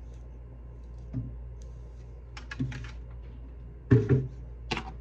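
Handling noise: a few scattered light taps and knocks, the loudest pair about four seconds in, over a steady low hum.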